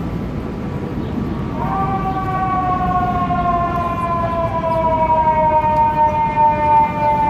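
Fire truck siren starting about a second and a half in and sounding as one long, slowly falling wail over steady city street noise, getting louder as the truck approaches.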